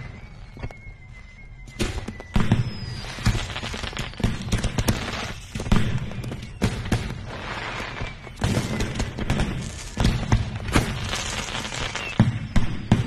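Fireworks going off in a dense, irregular string of bangs and crackles, with a faint whistle in the first couple of seconds, over background music.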